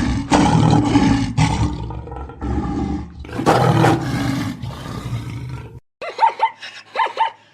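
A large animal roaring: several long, rough roars separated by short breaths. About six seconds in it cuts to a different animal's quick series of short, higher calls.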